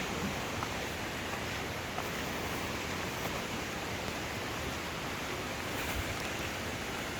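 Steady rush of falling water from a waterfall, an even noise that neither rises nor falls.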